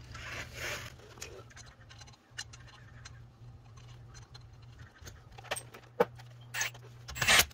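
Lug nuts clinking and being threaded by hand onto a car's wheel studs: a scatter of small metallic clicks and taps, busier near the end, over a faint steady low hum.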